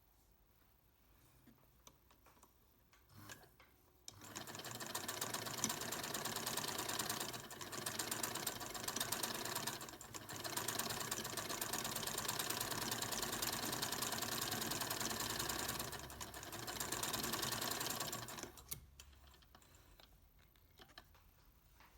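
Singer 99 sewing machine stitching, starting about four seconds in after a few small clicks. It runs in several spells with brief slowdowns between them and stops near the end.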